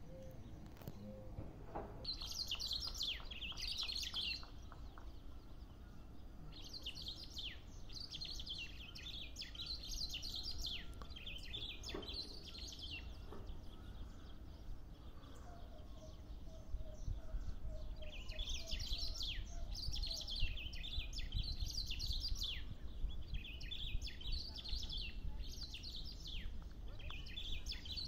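Black-throated grosbeaks (bico-de-pimenta) singing: four bouts of quick, high, down-slurred notes repeated in phrases, with short pauses between the bouts.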